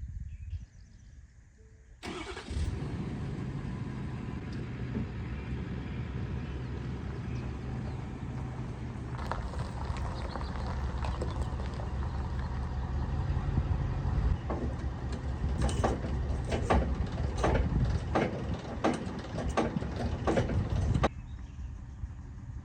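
A Bobcat 743B skid steer's diesel engine catches about two seconds in and runs steadily, with a series of sharp knocks and clanks over its last few seconds before it cuts off suddenly.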